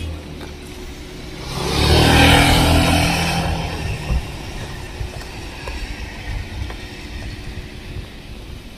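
A car driving past close by, swelling to its loudest about two seconds in and fading away over the next second or so, with low street-traffic hum underneath.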